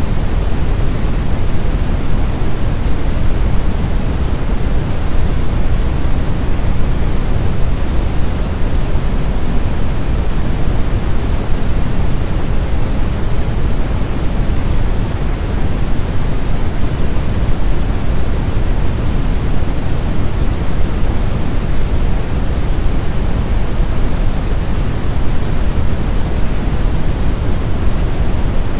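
Deep brown noise: a steady, smooth rumbling hiss, strongest in the bass, with no change throughout.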